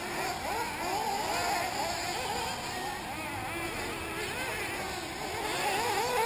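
Several 1/8-scale nitro RC buggy engines racing, their high-pitched whines overlapping and constantly rising and falling as the cars accelerate and brake around the track.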